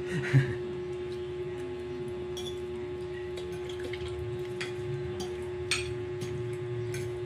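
Eating instant noodles: soft slurping and scattered short clicks of a fork against a ceramic plate, over a steady low hum.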